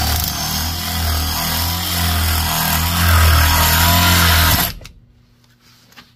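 Impact drill boring through a stainless steel strap clamped in a vise: a steady motor hum under a harsh grinding hiss from the bit on the metal, with a bit not made for stainless. The drilling stops abruptly about three-quarters of the way through.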